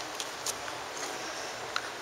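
Footsteps clicking on hard pavement, a few sharp, uneven steps over a steady background hiss.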